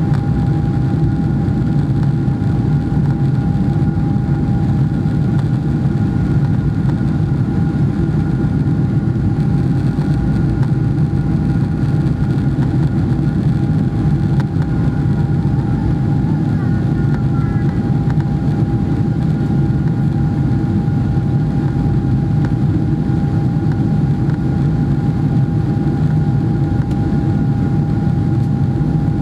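Steady cabin noise inside a Boeing 777-300ER: the drone of its GE90-115B turbofans and the rush of air along the fuselage, deep and even, with a faint steady whine above it.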